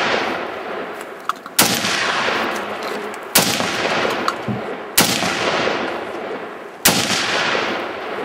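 Kel-Tec RFB semi-automatic bullpup rifle in 7.62×51mm NATO firing four single shots, spaced about a second and a half to two seconds apart. Each crack is followed by a long echoing tail.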